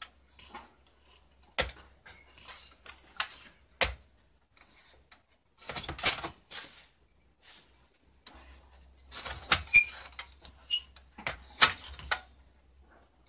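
Latch on a wire dog crate door being worked by hand: a string of sharp metallic clicks and rattles, with busier bursts of rattling near the middle and towards the end.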